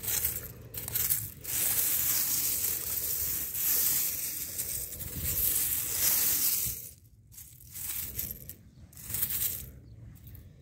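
A hand sifting through a bed of loose small seashells, the shells clinking and scraping against each other. The sound is steady for about the first seven seconds, then comes in shorter separate rattles.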